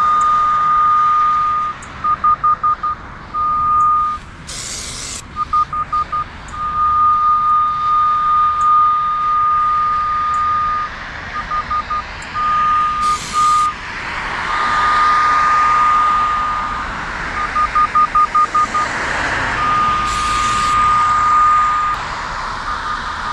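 Radiodetection RD8200 cable and pipe locator receiver sounding its locate tone as it picks up the signal on a buried ductile iron water main. It gives a steady high beep at one pitch, held for one to four seconds at a time, broken by runs of rapid short beeps.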